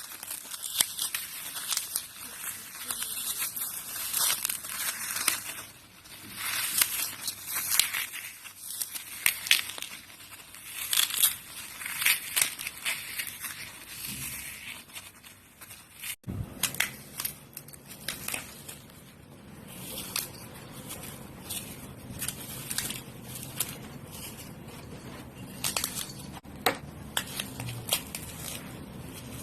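Dry floral foam being crushed, crunching and crackling in dense runs of small cracks; after about halfway the cracks come sparser.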